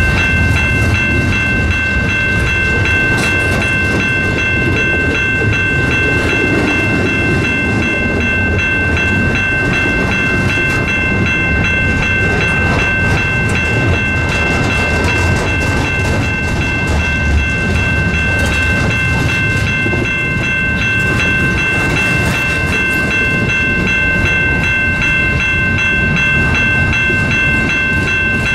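Double-stack intermodal train's loaded well cars rolling past at close range: a steady rumble and clatter of wheels on rail, with a steady high-pitched whine over it.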